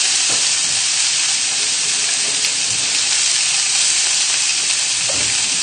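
Fish fillets sizzling steadily in oil in a frying pan after being turned skin side up. The burner is off, but the pan is still hot enough to keep them frying.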